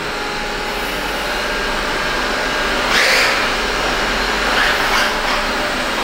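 Roborock S50 robot vacuum running, a steady rushing noise of its suction fan, with a brief louder rush about three seconds in and another near five seconds.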